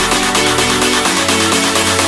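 Electronic dance music with a steady beat and sustained synth tones.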